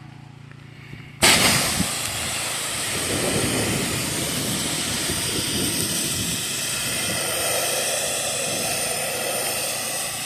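A pressure washer's spray starts suddenly about a second in and runs as a steady, even hiss. This is the rinse after the soft-wash soap has dwelt on the shed.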